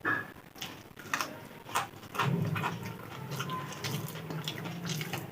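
Close-up eating sounds: chewing with scattered small mouth clicks and smacks, opening with one sharp, louder sound. A low steady hum sets in about two seconds in.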